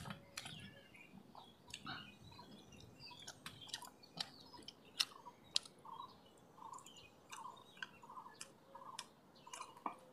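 Faint eating sounds of a person eating rice and fish curry by hand: chewing, lip and mouth clicks, and fingers on a steel plate, as scattered short sharp clicks. In the second half a bird calls over and over in the background.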